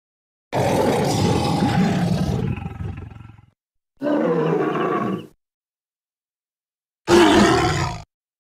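Three big-cat roar and growl sound effects for saber-tooth tigers, with silence between them. The first is long and fades away over about three seconds; the next two are shorter.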